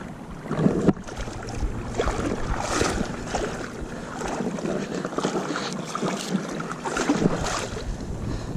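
Water sloshing and swishing around a person's body as they wade chest-deep through shallow saltwater, in uneven surges about once a second with each stride.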